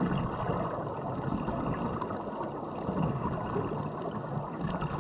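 Underwater ambience from a diving camera: a steady low rush and gurgle of water and air bubbles, swelling slightly about three seconds in.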